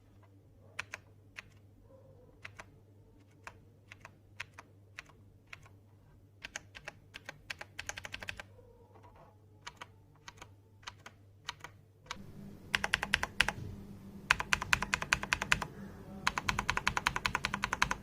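TVS Gold mechanical keyboard with clicky Cherry MX Blue switches being typed on: scattered single keystrokes for about the first twelve seconds, then fast continuous typing that is louder.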